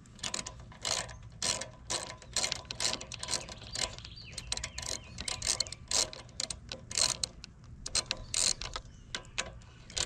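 Socket ratchet wrench clicking in quick uneven runs of strokes as it backs out the long bolts holding a lawnmower engine's air filter box.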